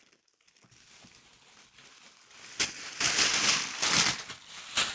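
Tissue paper and plastic packaging crinkling and rustling as a wrapped pack of yarn is pulled out. It is faint at first and turns loud and dense from about two and a half seconds in.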